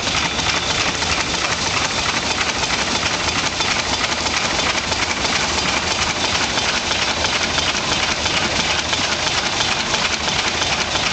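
Waterous steam fire engine running while pumping: a fast, even mechanical beat from its steam pump engine over a steady hiss, unbroken throughout.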